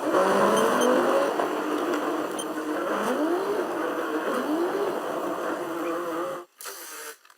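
Car engine running and revving up several times, each rev a rising pitch; the sound cuts off abruptly near the end, followed by a short burst of noise and a click.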